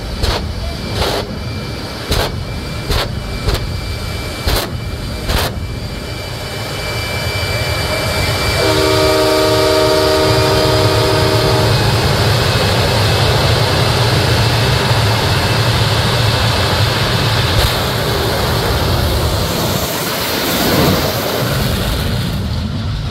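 Jet-engine semi truck: a string of loud bangs from its flame blasts over the first five seconds, then the jet engine running up to a steady loud roar. An air horn sounds for about three seconds around the ten-second mark.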